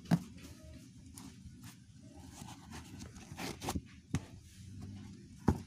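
Handling noise of rubber-soled Ventela Basic canvas sneakers against cardboard: scattered taps, knocks and light scrapes, with a sharp knock at the start and a louder one near the end, over a low steady hum.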